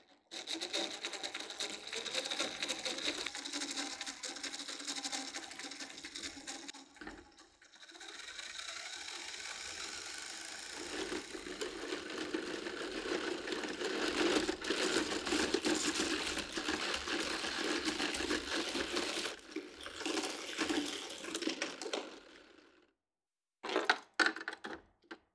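Lego Technic treadmill running, its motor, gears and plastic tread links giving a fast, continuous mechanical clatter. It drops away briefly about seven seconds in, then runs louder. It stops shortly before the end, and a few separate clacks follow.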